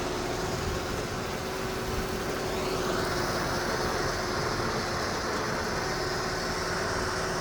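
Fishing boat's engine running steadily, with a whine that rises in pitch about two and a half seconds in and then holds.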